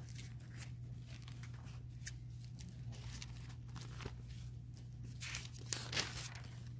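Bible pages being turned, a series of short paper rustles and crackles with a louder flurry of rustling about five seconds in, over a steady low hum.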